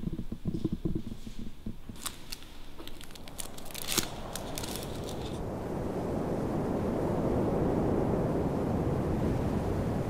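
A run of sharp little clicks and taps for a few seconds, the loudest about four seconds in. Then a steady rushing rumble with no clear pitch swells in and holds.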